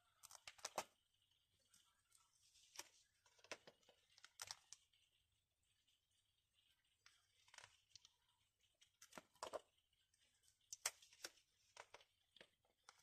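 Clear plastic sleeve pages of a display book portfolio being handled and turned, giving short crinkling, crackling rustles every second or so, with a cluster of them as a page flips near the start and again near the end.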